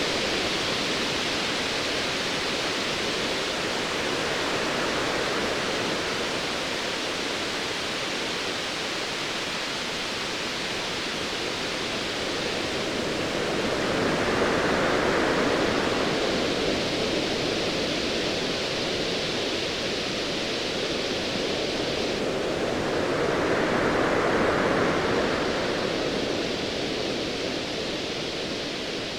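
Ocean waves washing in a steady rush of surf, swelling louder twice, once about halfway through and again near the end.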